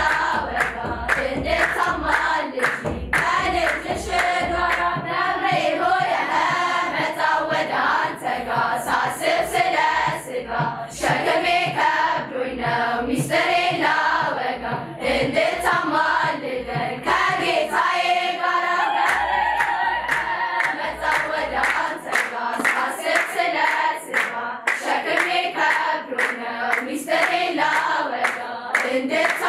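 A girls' choir singing an Ethiopian Orthodox hymn (mezmur) together, clapping their hands along with the song.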